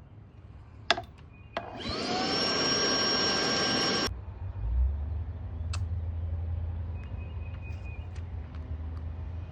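A small vacuum cleaner clicks on, its motor whine rising as it spins up. It runs for about two seconds sucking up scraped gasket debris, then stops abruptly about four seconds in, leaving a low rumble.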